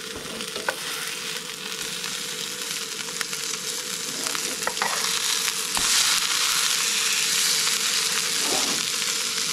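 Fish fillets sizzling in oil in a non-stick frying pan on a portable gas stove, a steady hiss that slowly grows louder. There are a few light clicks from metal tongs.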